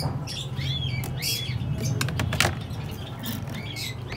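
Small birds chirping in short repeated calls, about once a second, over a steady low hum, with a few faint clicks.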